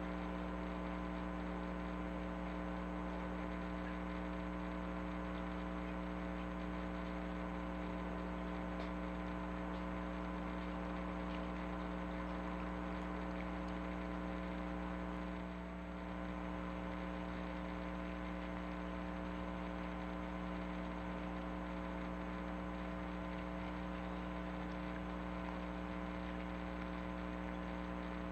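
Steady electrical-sounding hum made of several fixed tones over a faint hiss, unchanging except for a brief dip about halfway through.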